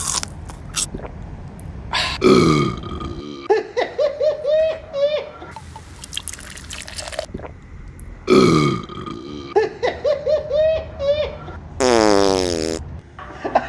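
Comic burp-like noises: a pitched sound sliding down, followed by a quick run of squeaky, giggle-like chirps. The sequence repeats almost identically, with a hissy stretch between the two runs and another falling slide near the end.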